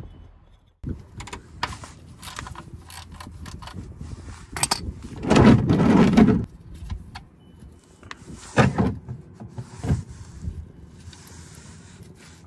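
Hand tools clanking and scraping under a BMW E34 525i while the oil pan's drain plug is undone to drain the engine oil: a run of short metal knocks and rattles, loudest about halfway through.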